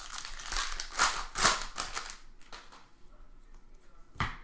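Trading card packs and cards being handled: wrapper crinkling and cards rustling for about two seconds, then quieter, with one sharp click near the end.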